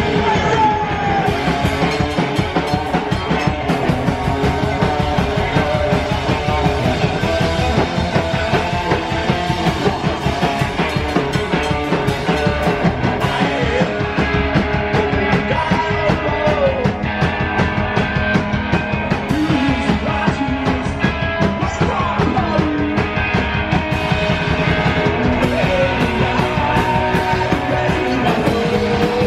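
A psycho-punk band playing live: two electric guitars, an upright double bass and a drum kit driving a steady beat, with a man singing over them.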